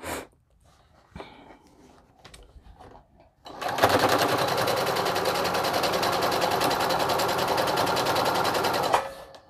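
Computerized sewing machine running a straight seam through fabric and terry towelling, a rapid even stitching rhythm that starts a few seconds in, runs steadily for about five seconds and stops shortly before the end. Before it, a few faint clicks as the fabric is handled.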